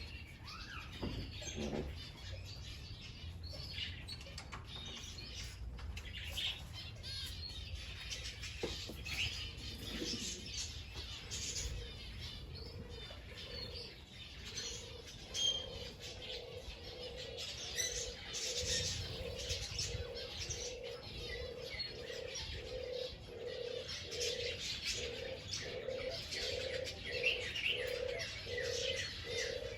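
Small birds chirping throughout, joined about halfway through by a dove cooing in a long, even run of low coos.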